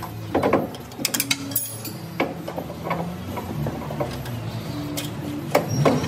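Irregular metal clicks and knocks as a DAF LF truck's power steering box is worked loose and lifted off its mounting, with a louder cluster of knocks near the end.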